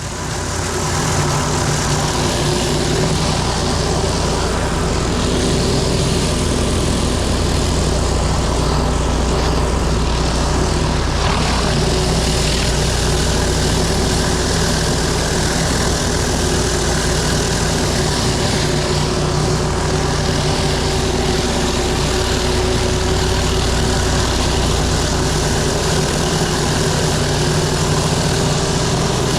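Pressure washer engine running steadily, with the loud, even hiss of water jets from a 24-inch surface cleaner working over pavers, its nozzle tips running clear.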